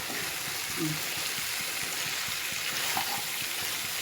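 Water being poured slowly into a hot pan of frying, spiced food: a steady hiss of pouring and sizzling.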